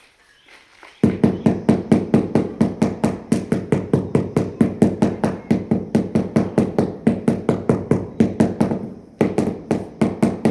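Rapid, even knocking, about five strikes a second, starting abruptly about a second in and going on with a brief dip near the end, as when floor tiles are tapped down into their mortar bed.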